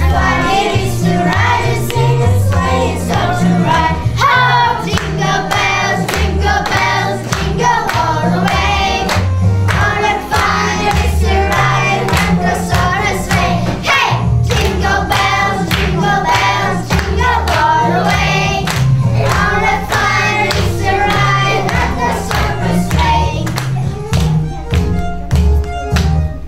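A children's choir singing a New Year song in English over instrumental backing music with a steady bass line.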